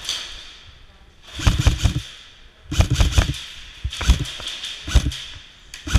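Airsoft guns firing in four short rapid bursts of sharp cracks and snaps, about a second apart.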